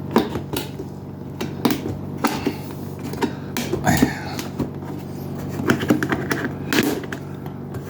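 Irregular plastic clicks and knocks as the coffee maker's plastic back panel is tapped and pressed to snap it into place on the housing.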